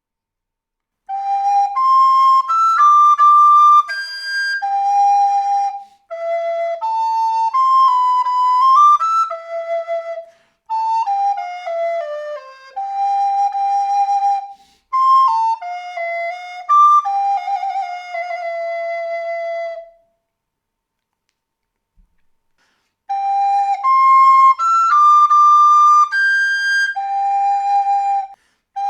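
Recorder playing a slow melody, one clear note at a time, in short phrases with brief breaths between them and a quick downward run in the middle. The tune stops for about three seconds near the end, then the same opening phrase starts over.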